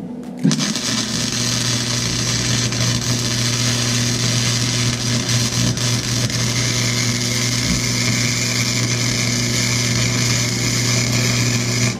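MIG welder arc running one continuous bead along a crack in an exhaust manifold: a steady hiss over a low hum. It starts about half a second in and cuts off sharply just before the end.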